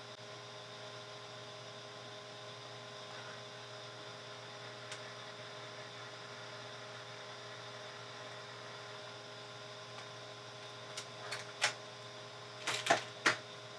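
A steady electrical hum, then a handful of sharp plastic clicks in the last few seconds, from a Brother P-Touch label maker being handled as a label is printed.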